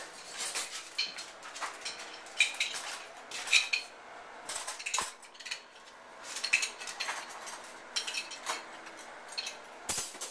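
Light metallic clinks and rattles in short, irregular bursts, a dozen or so, with a ringing edge.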